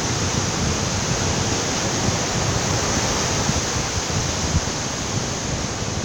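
Sea surf washing in, a steady rush of breaking and receding waves with a low rumble beneath.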